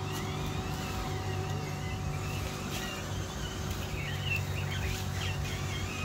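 A motor running steadily with a low, even hum, and faint high wavering chirps above it.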